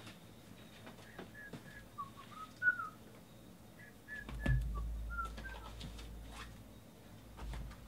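A string of short whistled notes, rising and falling in a loose tune. A sharp click and a low thump from the table fall between them.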